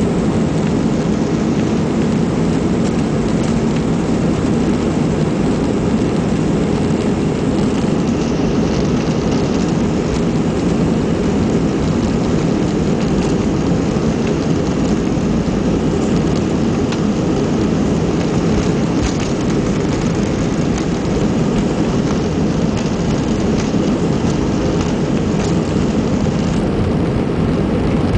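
Airbus A320 cabin filled with the steady, loud, deep rush of the engines at takeoff power and the airflow around the fuselage, with a faint steady hum under it.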